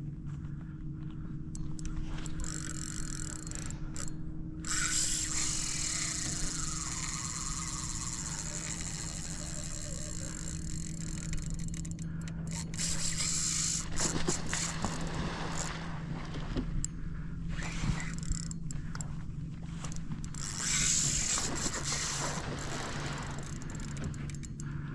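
Spinning fishing reel working under a big fish: long hissing, scraping stretches of reel and line noise, twice, over a steady low hum.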